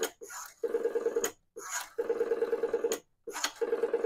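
Rotary dial on a Western Electric 233 three-slot payphone being dialed. A tone on the line is broken into rapid, even pulses in a burst for each digit, with short pauses and clicks between digits as the dial is wound and released.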